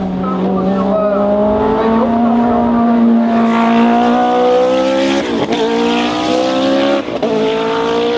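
1986 Osella Formula One car's Alfa Romeo twin-turbo V8 accelerating at full throttle. The pitch climbs steadily and drops back at two upshifts, about five seconds in and again about seven seconds in.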